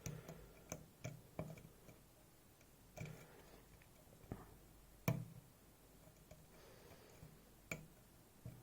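Faint, irregular clicks of a lock pick and tension wrench working the pin stacks of a 7-pin Goal Z cylinder, about eight scattered ticks with the sharpest about five seconds in.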